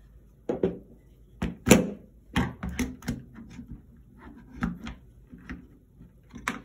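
Glock 17 magazines knocking and clacking against the hard plastic Glock pistol case as they are pushed and wedged into its slots: a string of sharp knocks, the loudest a little under two seconds in.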